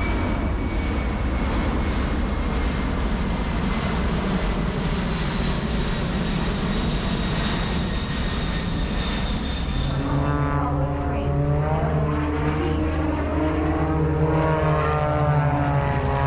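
Aerobatic propeller airplane flying a display: steady engine and propeller noise. About ten seconds in, a clear engine tone comes through, its upper tones gliding down and then rising again as the plane manoeuvres.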